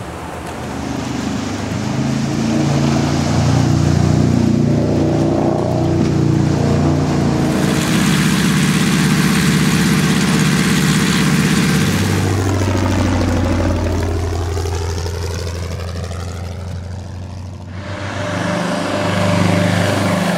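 Several vehicle engine recordings in a row, cut together, with the sound changing abruptly about 7.5 seconds in and again near the end. In the middle, a vehicle passes by with a sweeping, phasing hiss that falls and then rises as it goes.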